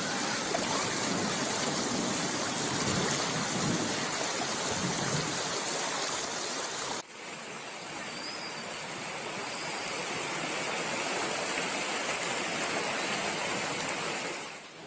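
Heavy rain pouring down in a steady dense hiss, with a brief break about seven seconds in before it goes on slightly quieter.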